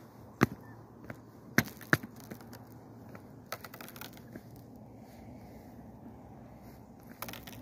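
Pond ice cracking under a person's weight: sharp snaps, one loud crack about half a second in and two more just before and at the two-second mark, then fainter cracks around the middle and a small cluster near the end.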